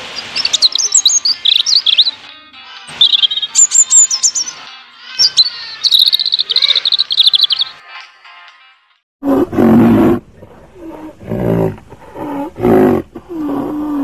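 European robin singing: high, quick warbling phrases that stop about eight seconds in. About a second later a rhinoceros gives a series of roughly six short, low, loud calls.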